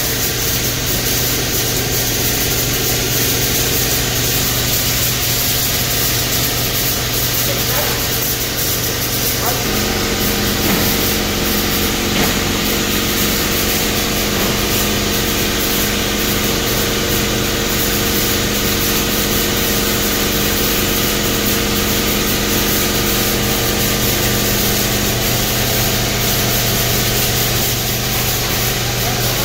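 Blueberry packing-line machinery running steadily: conveyors and the weighing and filling machines make a constant mechanical hum and whir. About ten seconds in, another steady hum joins as a further machine comes into the sound.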